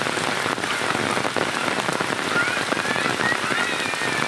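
Heavy rain falling steadily on a muddy dirt lane and running water, an even dense hiss. Faint high wavering calls sound in the background during the second half.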